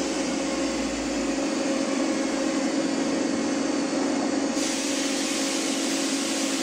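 2000 Mazak QT-250 CNC lathe running: a steady mechanical hum with a steady whine, and a hiss that comes back about four and a half seconds in.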